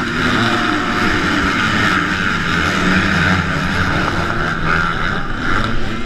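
A pack of motocross bikes racing past into the first turn, many engines revving together in one continuous loud drone.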